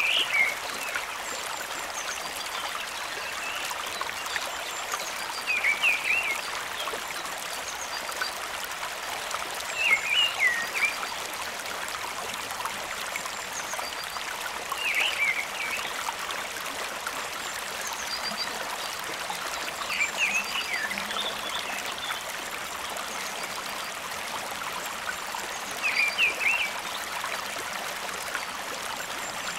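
A thin stream of water trickling steadily from a miniature pump spout into a small plastic pond. Short high chirps stand out over the trickle about every five seconds.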